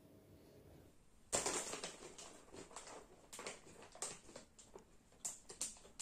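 A hand rummaging in a bag of crisps: the packaging crinkles and crackles in irregular bursts of noise, starting suddenly just over a second in after faint room tone.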